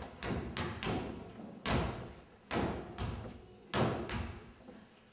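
Basketballs bouncing on a stage floor, each bounce a sharp thud with a short echo from the hall. The bounces come quickly at first, then more slowly, and stop about four seconds in.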